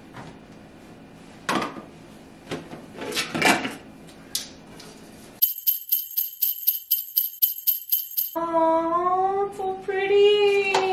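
A few handling knocks and rustles, then about halfway through a jingle of sleigh bells shaking in an even beat of about four strokes a second, which stops suddenly and gives way near the end to a short held melody.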